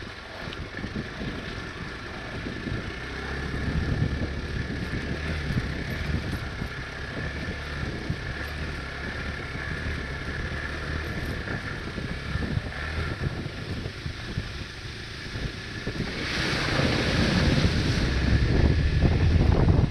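Hero Xpulse 200 motorcycle's single-cylinder engine running while riding off-road, with wind on the microphone. About three-quarters of the way through, the wind noise swells and becomes the loudest sound.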